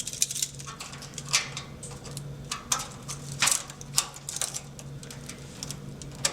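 Irregular sharp metal clicks and clatter of a server cable management arm being fitted onto rack rails, over a low steady hum.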